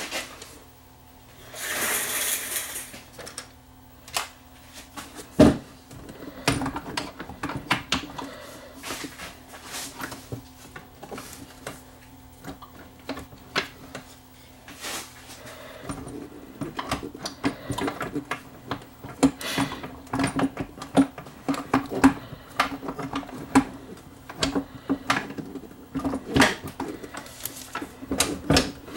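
Irregular clicks, knocks and light rattles of a Technics SL1400MK2 turntable's parts and clear plastic dust cover being handled during reassembly, with a brief scraping rustle about two seconds in.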